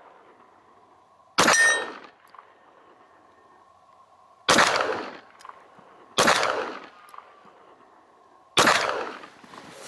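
Four pistol shots at uneven intervals, each with a short echo; the first is followed by a brief metallic ring.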